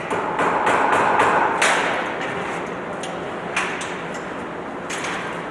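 Irregular knocks and clicks over a steady noise, loudest in the first two seconds, with a sharp knock about one and a half seconds in.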